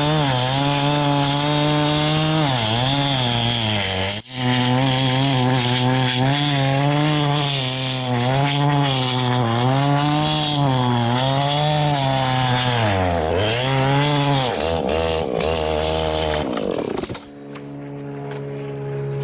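Old, heavy Husqvarna chainsaw held at full throttle ripping a big log lengthwise, its engine pitch sagging and recovering again and again as the chain loads up in the cut. Near the end the throttle is released and the saw drops to a steady idle.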